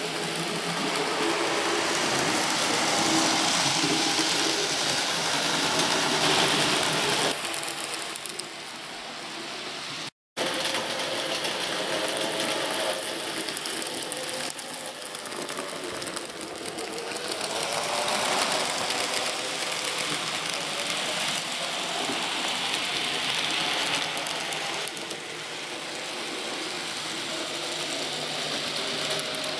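N gauge model trains running: the steady whirr of the small electric locomotive motors and their wheels on the track, wavering slightly in pitch. The sound cuts out for a moment about ten seconds in.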